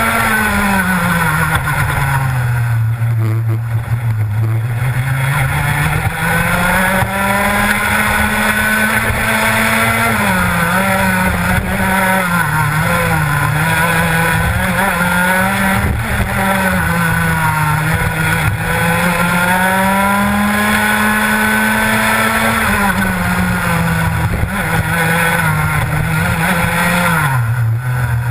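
Rotax Max two-stroke kart engine at full racing revs, heard onboard, its pitch dropping each time the driver backs off for a corner and climbing again along the straights. There are deep drops about two seconds in and near the end, and shorter dips with a wavering pitch in the middle.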